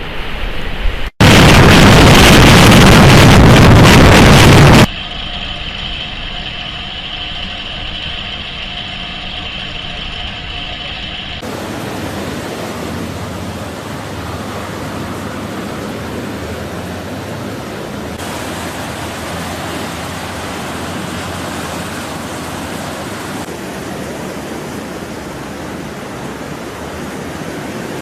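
Steady rushing noise of strong wind and rough sea, heard in several cut segments. About a second in, a few seconds of very loud wind buffets the microphone. In the middle stretch a steady hum sits under the noise.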